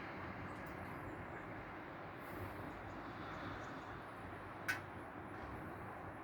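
Steady outdoor background noise, like distant traffic, with one sharp click a little after four and a half seconds in.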